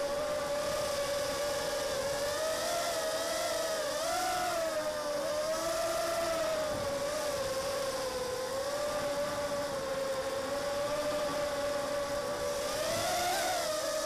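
Six 1306 3100kv brushless motors and propellers of an Armattan Mini Hex hexacopter whining in flight, heard from on board. The pitch wavers up and down with the throttle, rising briefly about four seconds in and again near the end.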